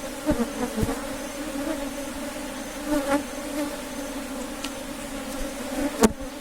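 Many honeybees buzzing steadily around an opened hive during a frame inspection. A few sharp knocks come through, the loudest near the end.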